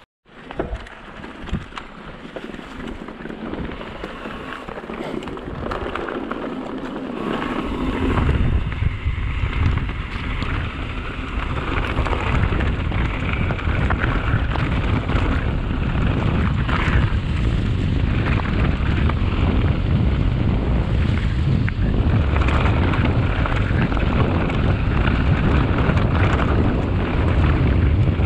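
Mountain bike riding a dirt and grass trail: wind buffeting the microphone over tyres rolling and crackling on dirt, with a few knocks. The rumble grows louder from about eight seconds in as the bike picks up speed.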